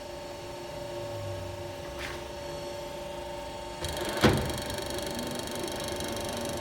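Heidenreich & Harbeck Hanseat 480 centre lathe running with a steady whine. About four seconds in its sound turns brighter, and a sharp clunk follows.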